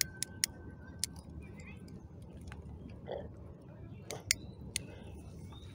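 Small sharp clicks and taps from a hand handling the cardboard model ship and its toy cannons: a few in the first second and a short cluster about four seconds in, over a low steady background rumble.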